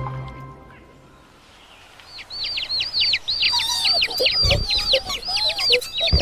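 A marimba-like music cue fades out. After a short lull a chorus of birds sets in, with rapid high chirping calls repeated many times a second, lower calls joining in, and a couple of low thumps.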